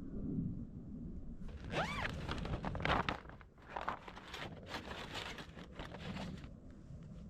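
Gear being handled: irregular rustling and light clattering, with a short squeak that rises and falls about two seconds in.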